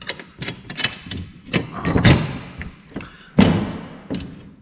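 Clicks and knocks of an ATV snow plow blade and its steel mounting frame being handled and fitted on a concrete floor, with two heavier thuds about two and three and a half seconds in.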